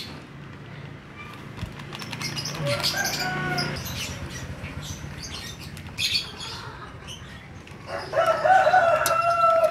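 Plastic seasoning sachet shaken and rustled over a plastic bowl of fried meatballs, sprinkling powdered seasoning onto them. Near the end a loud, drawn-out pitched call sounds for a second or two, louder than the rustling.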